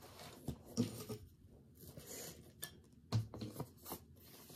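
Faint rustling and scattered small clicks and knocks of hands handling a soft fabric bag and the things inside it.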